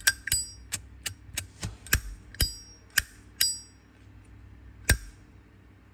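Zippo lighter's flint wheel being struck over and over: a run of sharp metallic clicks with a brief ring, about three a second, slowing, then a last louder click about five seconds in. It shows the wheel strikes well.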